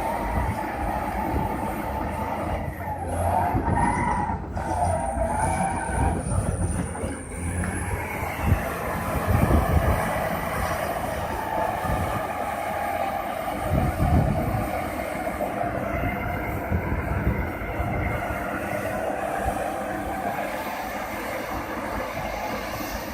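HBXG SD7N bulldozer's Cummins diesel engine running under load as the crawler works, with a wavering higher whine over the rumble and now and then a clank from the tracks.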